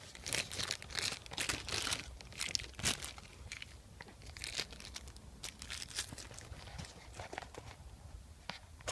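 Plastic packaging crinkling and rustling as small parts are handled, thickest in the first three seconds, then thinning to scattered light clicks and scrapes.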